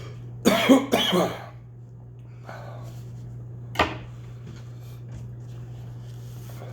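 A man coughing and clearing his throat twice in quick succession, his throat burning from superhot chili powder and sauce. A single sharp knock follows about four seconds in, over a steady low hum.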